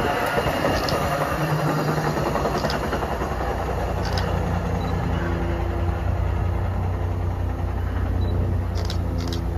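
A train at a station platform: a rolling rumble fades over the first two seconds, then a locomotive runs with a steady low hum, with a few short sharp clicks near the end.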